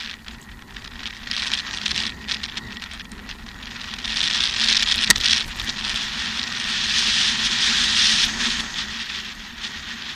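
Mountain bike rolling downhill over grass and dirt: a rush of tyre and wind noise with a steady crackle of small rattles and knocks from the bike over bumps. It grows louder in the middle, with one sharp knock about five seconds in.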